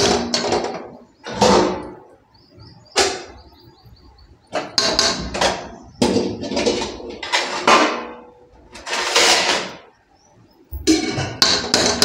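A metal spoon scraping and knocking against an aluminium kadhai in a run of separate strokes, about a second apart, as besan is stirred and roasted in ghee.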